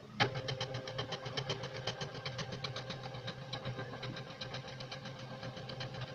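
NEMA 23 stepper motors of a homemade Arduino CNC machine driving the gantry carriage along its rods, making a quick even ticking of roughly eight to ten ticks a second over a steady hum. It starts with a sharp click a moment in.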